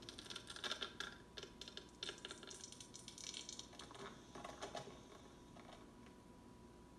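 Rapid irregular clicking and crackling for about five seconds, fading out, with a faint steady high tone underneath.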